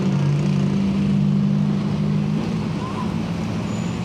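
An engine running steadily with a low hum, its pitch shifting slightly about two and a half seconds in.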